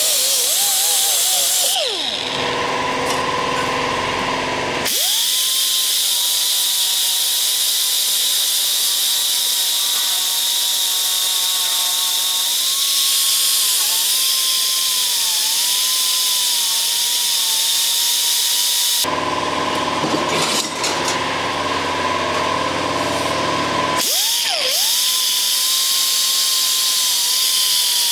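A high-speed power cutting tool whines as it cuts rusted sheet-metal floor, its pitch sagging and recovering as it bites into the metal. It spins down and restarts twice.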